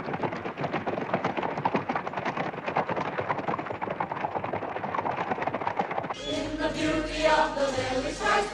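Hooves of a troop of cavalry horses galloping hard, a dense rapid drumming. About six seconds in it cuts abruptly to a choir singing.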